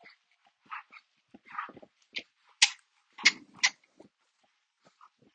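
An animal snuffling in short, quick breaths, the loudest few about two to four seconds in.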